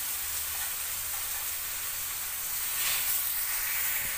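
Pork belly pieces sizzling in hot caramelized sugar and garlic in a stainless steel wok: a steady hiss that flares up about three seconds in and again near the end as more pieces go into the pan.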